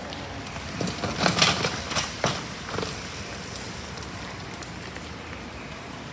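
A quick run of sharp taps and knocks, like hard-soled footsteps, about a second in and lasting under two seconds, over the steady hiss of rain.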